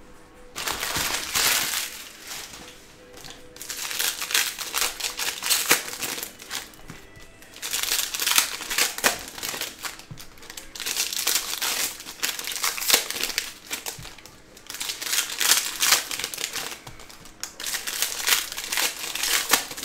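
Foil trading-card pack wrappers crinkling and crackling as packs are torn open and handled. The sound comes in about six bursts of a few seconds each, with short lulls between.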